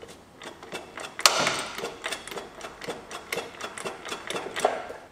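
Mercruiser 302 V8 marine engine turned over by hand with a long-handled wrench on the crankshaft bolt: irregular clicking and a crunchy grinding, loudest about a second in, as it turns only stiffly. The stiffness is the sign of a partly seized engine, which the owner wonders may be frozen output drive bearings.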